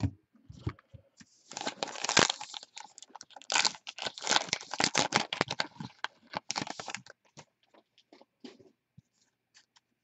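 A trading-card pack wrapper being torn open and crinkled, several seconds of dense crackling, followed by a few light clicks of cards being handled.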